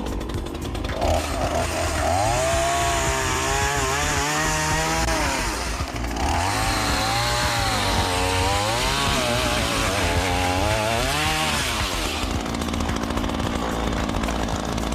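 Chainsaw running and cutting into wood, its engine pitch rising and falling under load in two long runs with a brief drop about six seconds in.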